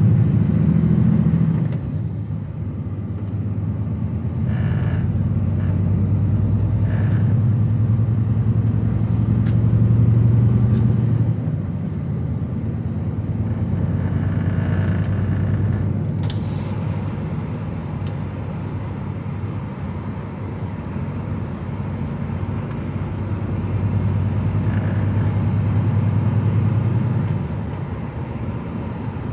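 DAF XF truck's diesel engine running while driving, heard inside the cab as a steady low drone that grows louder for stretches and eases off as the load changes. A few brief clicks come through over it.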